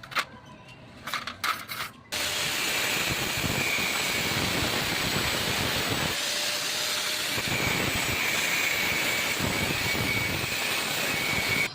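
A few sharp clicks and knocks, then about two seconds in a loud, steady hissing rush starts suddenly and runs on, with a faint thin whistle in it.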